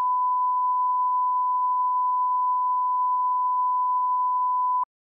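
1 kHz line-up test tone played with colour bars: one steady sine tone that cuts off suddenly near the end.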